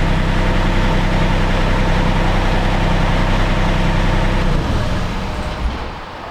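Mini excavator's diesel engine running steadily; its low engine note stops about four and a half seconds in and the sound dies away.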